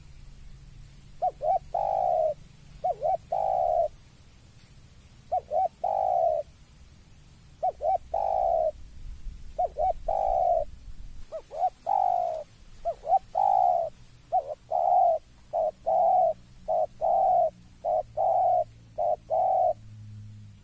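Spotted dove cooing its territorial call at a rival. About a dozen phrases, each a couple of quick short coos followed by a longer, drawn-out falling coo, coming faster in the second half.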